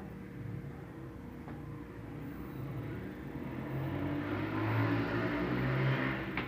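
Consul Facilite washing machine running in its spin stage: a motor hum underneath, with a rushing noise that builds over the second half and eases off, and a sharp click near the end.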